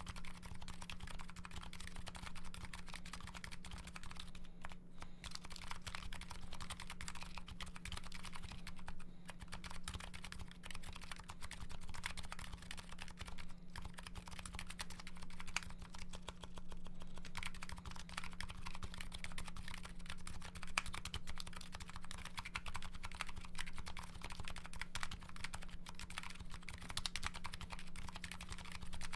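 Continuous typing on a Nuxros Kraze custom mechanical keyboard with MetaKeebs MetaPulse electrocapacitive switches: a dense run of keystroke clacks with a few brief pauses. A faint steady low hum sits underneath.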